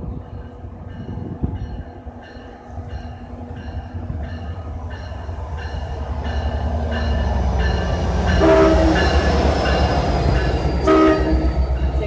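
Diesel passenger train arriving at a station platform, its rumble growing louder as it comes in. It sounds two short horn blasts, about eight and a half and eleven seconds in, with a faint ringing repeating about twice a second underneath.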